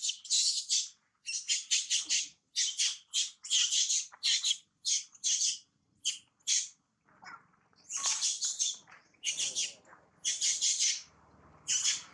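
A rapid series of short, high-pitched squeaky animal calls, about two to three a second, in runs broken by brief pauses.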